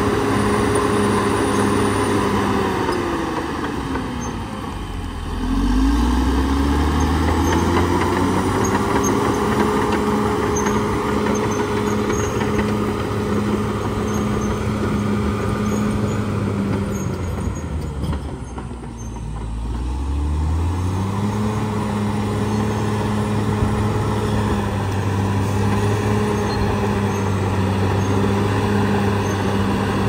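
CAT D6R XL bulldozer's diesel engine working as the machine pushes and spreads dirt. The engine note falls away twice, about four seconds in and again about two-thirds of the way through, and climbs back up each time.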